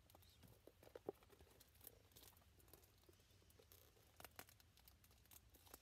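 Faint crinkling and small clicks of a small packet's wrapping being handled and picked at by fingers while trying to tear it open, with a couple of sharper ticks about a second in and past four seconds.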